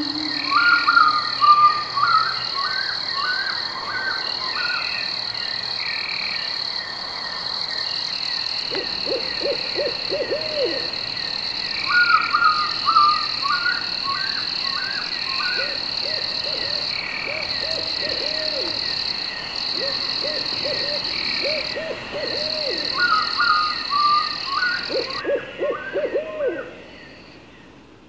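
Night nature ambience: a steady high-pitched insect chorus, frogs croaking in short runs of four or five, and a bird's short stuttering call three times, about ten seconds apart. It all fades out near the end.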